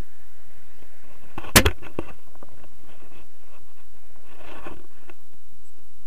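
Steady wind rush on the microphone of a pole-mounted camera during a tandem paraglider flight, with a sharp knock about a second and a half in and two smaller knocks just after.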